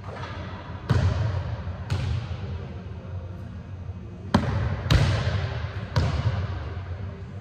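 A basketball bouncing on a hardwood gym floor: five sharp bounces at uneven spacing, each ringing on with a long echo in the big hall.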